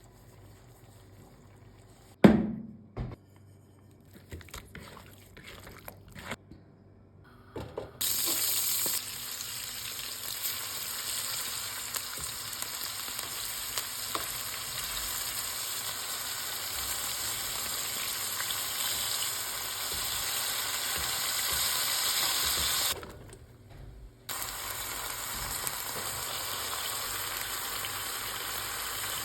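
A sharp knock about two seconds in and a few small clicks and taps. Then, from about eight seconds, food frying in a hot skillet with a steady sizzle, which drops out for about a second near the end before resuming.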